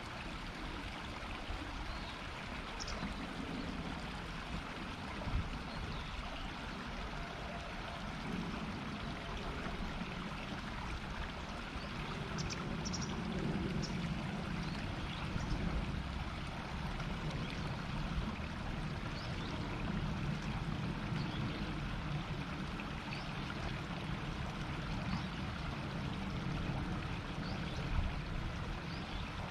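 A river murmuring: a steady rush of flowing water over a shallow bed, with a few faint, brief high sounds above it.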